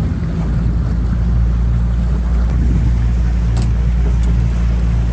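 Boat engine running steadily under way, a low even drone.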